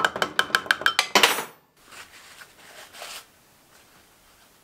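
A metal axle housing being scrubbed out by hand: quick, even strokes, about six a second, each setting the metal ringing, ending in a harsher scrape just over a second in, followed by faint rubbing as it is wiped with a rag.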